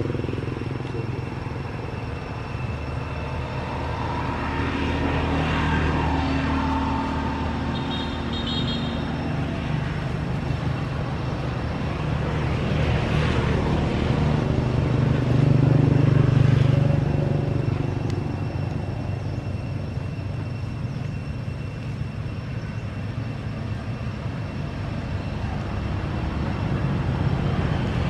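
Motor traffic: vehicle engines running steadily, swelling louder as one passes about halfway through.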